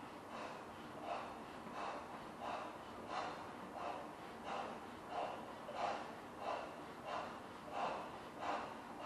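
A person blowing up a large latex balloon by mouth: quick, rhythmic gasping breaths, about three every two seconds.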